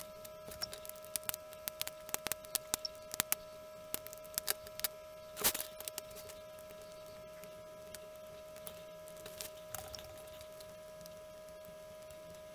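Scattered small clicks and taps from a circuit board and soldering iron being handled on a cutting mat, with one louder short scrape about five and a half seconds in, over a steady high-pitched electrical hum.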